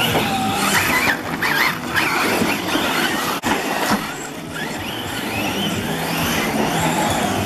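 Two Mojave EXB and Talion EXB radio-controlled cars racing on dirt, their electric motors whining up and down in pitch as the throttle changes, with tyre and gravel noise.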